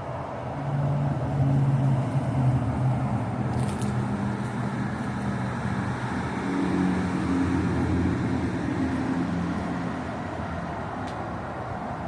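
Motor vehicle engine running with road-traffic noise, the engine hum swelling about a second in and again midway.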